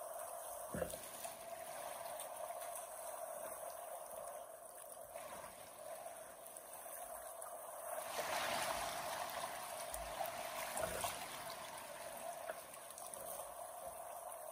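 River water flowing and trickling steadily, with a louder rushing swell about eight seconds in.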